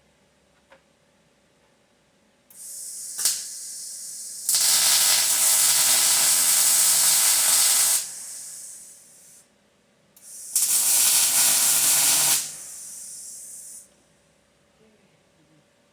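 MIG welder laying two welds, each a loud steady sizzle of the arc, the first about three and a half seconds long and the second about two. Each weld is framed by the quieter hiss of the shielding gas flowing before the arc strikes and after it stops.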